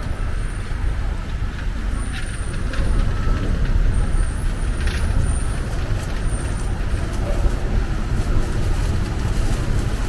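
City street traffic with a heavy vehicle running close by, a steady low rumble, with a few short high squeals.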